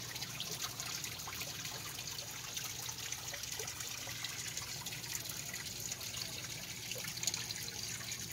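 Steady background noise like running or trickling water, with faint scattered ticks throughout.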